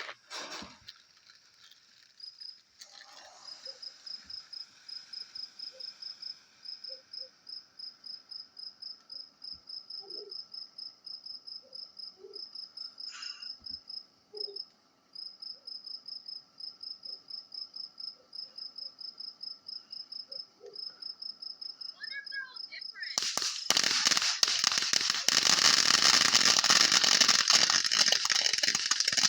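Crickets chirping in a fast, steady pulsing trill, with faint voices in the background. About 23 seconds in, a firework starts up with a loud crackling hiss that drowns out the crickets.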